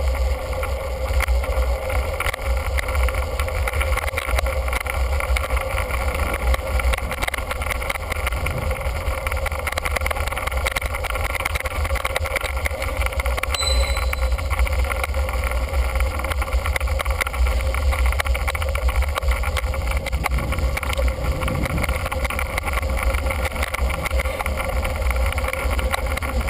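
Wind buffeting a bicycle-mounted camera's microphone while riding, a steady fluttering rumble mixed with road noise.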